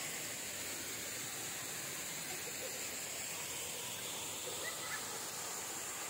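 Steady rush of a rocky mountain stream and waterfall, an even hiss of falling and running water.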